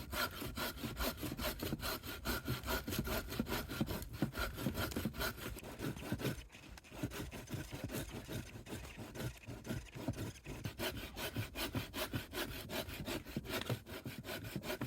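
Handsaw cutting through a fallen tree trunk, with quick, even back-and-forth rasping strokes and a brief pause about six and a half seconds in.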